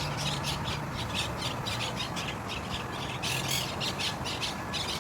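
Flock of parakeets squawking, short harsh calls repeating rapidly and continuously.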